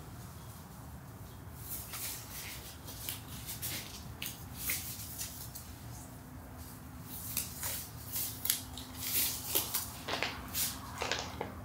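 Blue nitrile gloves being pulled onto the hands: a run of short, sharp rustles and rubbery snaps. Near the end, a foil pouch crinkles as gloved hands press on it.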